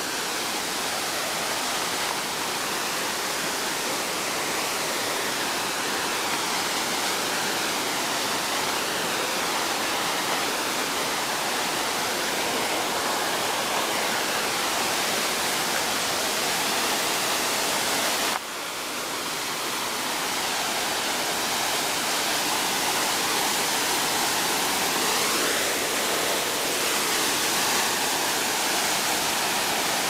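Steady rushing hiss of a waterfall, falling water heard across the gorge. The sound dips suddenly about two-thirds of the way through and comes back within a second or two.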